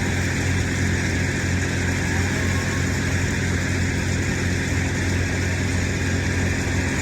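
A large engine running steadily at a constant speed, with a steady hiss over it.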